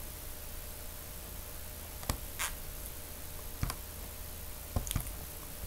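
A few short, sharp clicks of a computer mouse, about five spread irregularly over the seconds, over a steady low hum of background noise.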